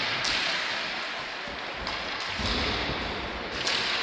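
Ice hockey play: a steady scraping hiss of skate blades on the ice, a few sharp clacks of sticks and puck, and a low thud about halfway through.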